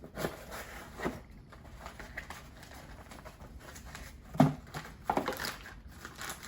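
Packaging being handled as a replacement circuit board is unpacked: scattered light rustling and handling noises, with one sharp knock about four and a half seconds in.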